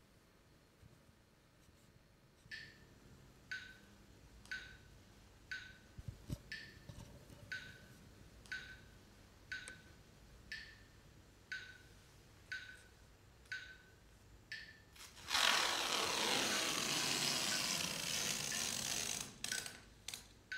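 Sharp, regular ticks about once a second, then about four seconds of loud rasping as a long strip of tape is pulled off its roll and laid down as a line on a carpet, then the ticks again.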